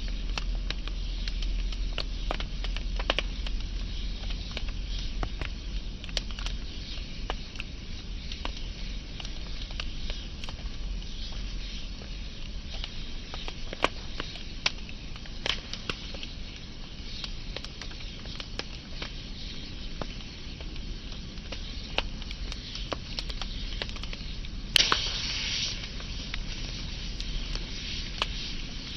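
Burning wood fire crackling: scattered sharp pops over a steady soft hiss and low rumble. Near the end comes one louder pop, followed by a brief burst of hissing.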